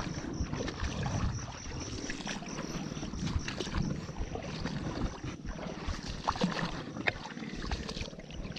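Water sloshing and lapping with small irregular splashes, from movement through shallow floodwater.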